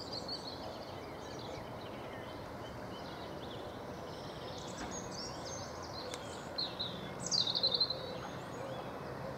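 Birds singing over a steady hiss, with one bird's loud rapid call near the end. A faint low drone from the approaching Class 171 diesel multiple unit comes in during the last couple of seconds.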